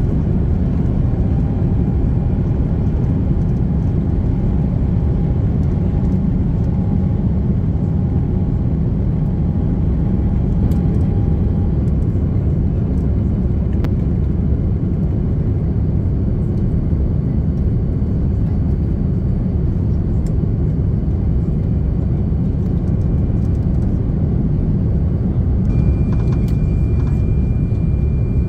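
Steady rumble of airliner cabin noise inside a four-engined Airbus A340-600, engine and airflow noise without a break. A faint thin whine comes in near the end.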